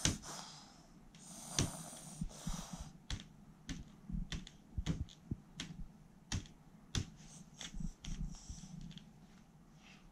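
A toddler making irregular sharp clicks and taps, about a dozen spread out, with a few soft breathy huffs in between.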